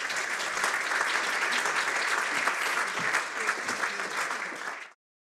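Audience applauding after a talk, a dense steady clapping that stops abruptly near the end.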